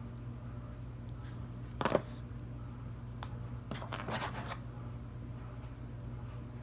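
Hands handling an action figure and its plastic accessories and packaging: a sharp click about two seconds in, then a short scratchy rustle, over a steady low hum.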